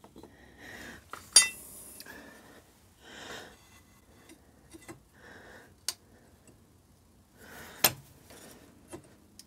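Metal tool clinking and scraping against the Suzuki K10P's cylinder barrel as it is worked under the fins to lever the barrel up, with three sharp clinks, the loudest about a second and a half in.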